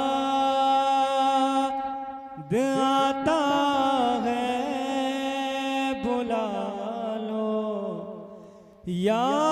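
A man singing a naat solo, holding long drawn-out notes with wavering ornamented turns. He breaks for breath about two seconds in, lets a phrase fade near the end, then starts a new rising phrase.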